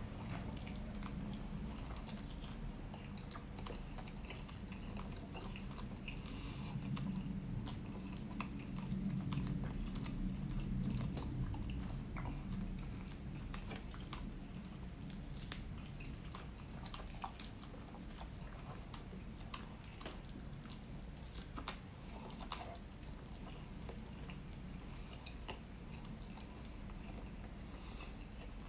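Close-miked chewing of honey-glazed rotisserie chicken: wet mouth smacks and many short clicks, a little louder about seven to twelve seconds in.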